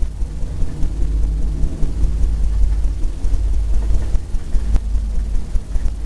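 A steady low rumble with a faint hum over it.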